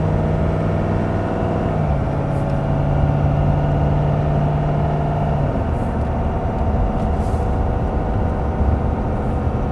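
Truck engine and road noise heard from inside the cab while towing an RV, picking up speed. A steady engine drone dips slightly in pitch about two seconds in and fades out about halfway through, leaving the low road rumble.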